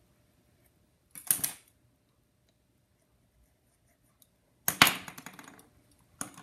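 Small metal hand tools clattering against each other and the table as they are put down or picked up, a rattling run of quick strikes about three-quarters of the way through. A short scrape comes about a second in.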